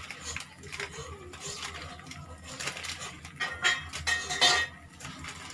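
Crackling and clinking from a metal pan of hot oil with mustard seeds in it, in several short bursts, the loudest about four seconds in: the seeds are starting to splutter.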